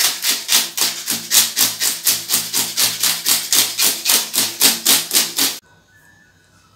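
Rhythmic scraping of a hand-held fish scaler stripping scales off a milkfish, about four to five strokes a second. It cuts off abruptly near the end.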